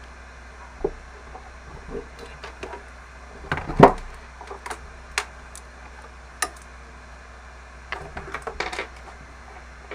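Scattered light clicks and knocks over a steady low hum, with a louder thump just under four seconds in and a quick run of clicks near the end.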